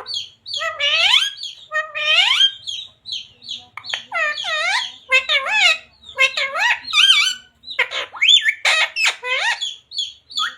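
Parrot vocalising in a quick series of short squawks and pitched calls that rise and fall, some with a speech-like shape, with small sharp chirps in between.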